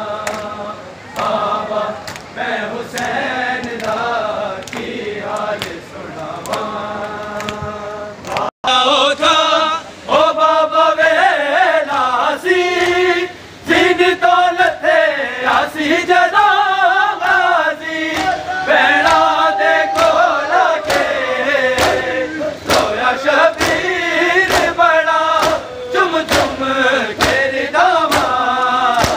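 Men chanting a Punjabi noha in unison, with rhythmic chest-beating (matam) slaps keeping time. The sound cuts out for an instant about eight seconds in and is louder after it.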